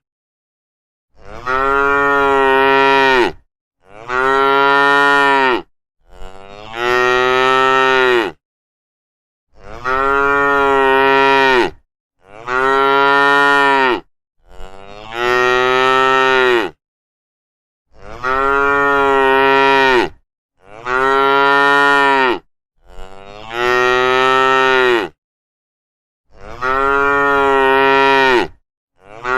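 Cows mooing: a string of about eleven long, loud moos, one every two and a half to three seconds. Each call cuts off into dead silence before the next.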